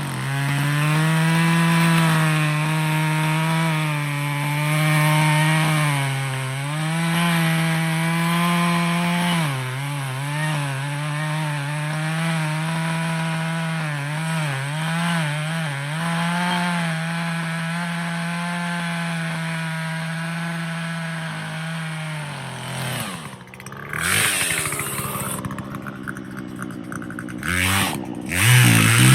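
Two-stroke Poulan chainsaw running at full throttle as it cuts into a maple trunk, its pitch sagging and recovering under load. About twenty-three seconds in the engine drops off and a rough, noisy stretch follows, and it revs back up at the end.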